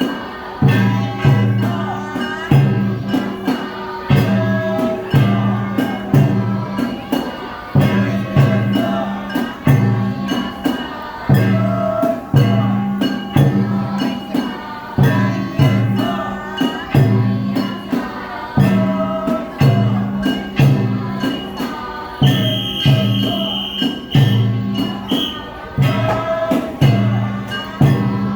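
Japanese festival music: regular low drum beats with jangling metal percussion and a melody line over them.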